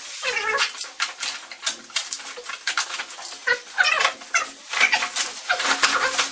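White plastic parcel wrapping being slit with a box cutter and torn off a cardboard box by hand: an irregular run of crackling rustles and rips.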